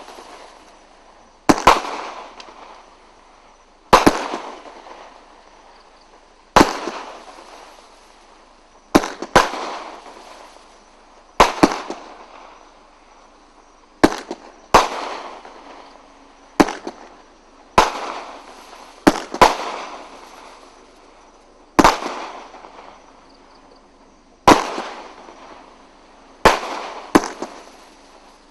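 A 500-gram consumer fireworks cake firing shot after shot: sharp bangs, each followed by a fading crackling tail, coming about every one to two and a half seconds, with some shots in quick pairs.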